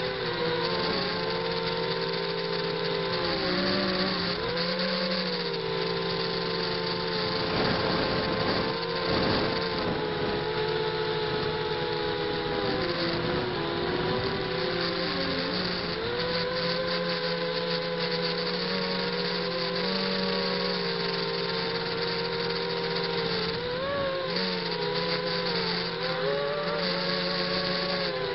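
ZMR 250 quadcopter's motors and propellers whining, heard from the camera mounted on the quad, with the pitch dipping and rising again and again as the throttle changes in flight.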